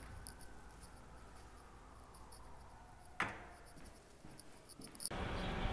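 A quiet indoor hush with faint ticking, broken about three seconds in by a single sharp knock with a short echo: a door shutting in a hallway. Near the end a steady rush of outdoor noise cuts in abruptly.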